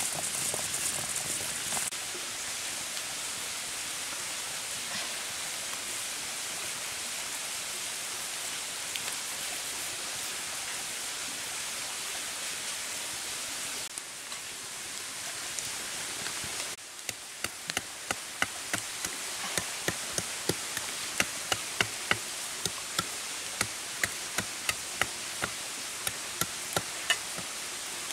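Wood fire crackling, with sharp pops coming a few times a second in the second half, over a steady hiss.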